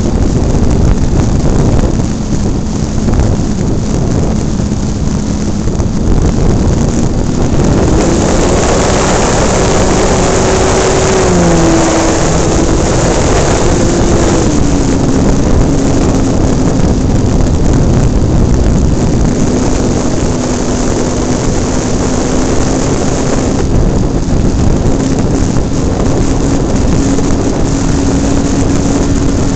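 Airflow rushing over the microphone of a radio-controlled model airplane in flight, with the plane's motor and propeller as a steady tone underneath. The motor's pitch rises about eight seconds in and settles lower from about fourteen seconds on.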